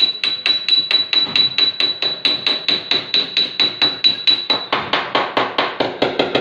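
A panel-beating hammer taps out a dent in a car door's sheet steel in a fast, even rhythm of about four or five blows a second. Each blow rings with a high metallic note until about five seconds in, when the blows turn duller. The hammering stops at the very end.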